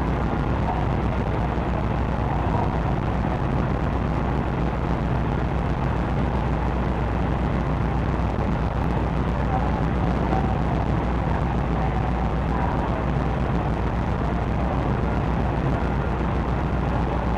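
Steady low drone of a car ferry's engines and machinery as the ship moves slowly alongside the quay, with an even noise over it that does not change.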